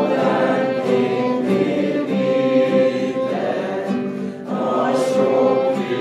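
A small group singing a song together, accompanied by acoustic guitar and violin, with long held notes.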